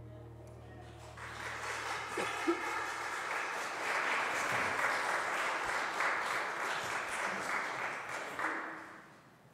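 A congregation applauding, starting about a second in and fading away near the end, as the final held chord of the choir's accompaniment dies out underneath.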